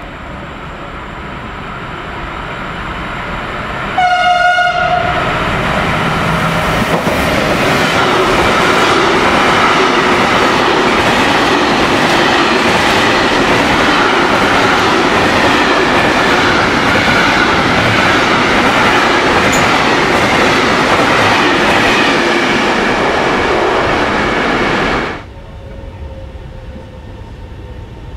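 Electric locomotive hauling a freight train through a station. The train approaches and sounds its horn once, a single steady note lasting about a second. The covered freight wagons then pass close by for some twenty seconds, wheels clattering over the rail joints. The loud train sound cuts off abruptly near the end, leaving quieter station background.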